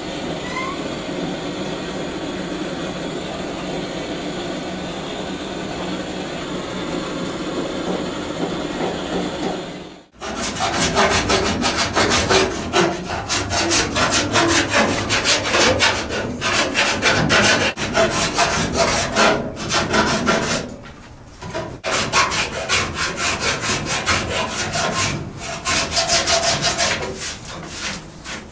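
A gas torch hisses steadily as it heats lead body solder on the roof seam of a 1932 Ford coupe. About ten seconds in, the sound gives way to a run of quick rasping hand strokes smoothing the lead-loaded seam, with a couple of brief pauses.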